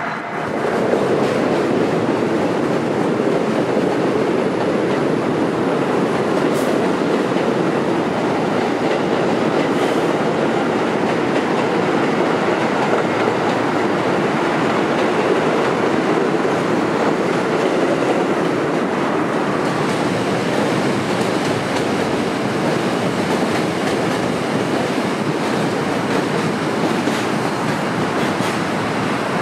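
New York City subway train running past on a steel bridge: a steady, loud rumble and clickety-clack of wheels on rails, which swells up sharply about a second in.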